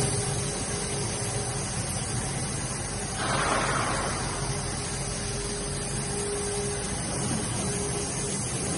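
Steady running noise of an ABA blown-film extrusion line: a low machine hum under a constant hiss of air, with a faint tone coming and going. About three seconds in a brief louder rush of noise rises over it.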